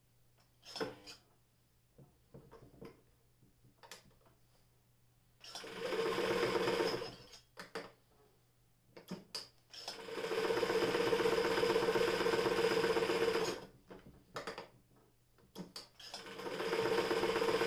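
Frister & Rossmann Model 45 electric sewing machine running in three bursts as it stitches through folded denim: a short run about five seconds in, a longer run of nearly four seconds from about ten seconds in, and another starting near the end. In the pauses between runs there are small clicks and rustles as the fabric is handled.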